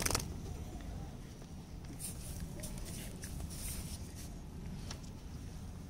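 Hands rubbing and scrubbing a wet cat's fur through a cloth wrap: scattered rustling and scratching over a steady low rumble, with a sharp knock at the very start.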